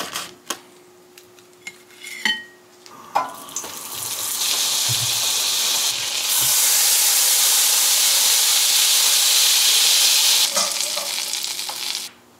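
Butter sizzling and spitting in a hot frying pan as a lemon-butter sauce is made. The sizzle builds from about four seconds in, is loudest in the middle and fades near the end, after a few knocks and clinks of utensils at the start.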